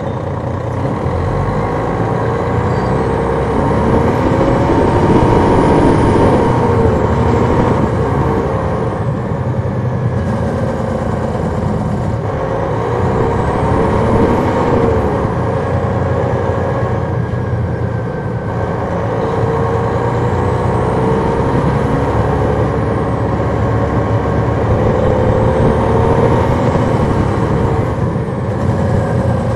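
Detroit Diesel Series 60 turbocharged inline-six diesel of a 2002 MCI D4000 coach heard from on board, pulling through several accelerations. The engine pitch climbs and falls back about four times, with a high whistle rising and falling alongside each pull.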